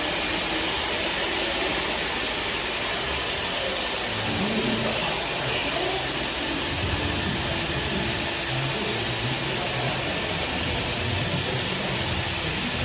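Steady, unbroken hiss and whir of power equipment running on a construction site, strongest in its high, hissing part and with no breaks.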